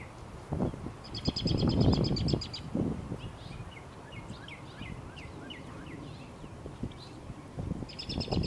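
Songbirds calling: scattered short high chirps throughout, and a rapid trill of about a second and a half heard twice, about a second in and near the end. Loud low muffled bumps on the microphone at the same times are the loudest thing.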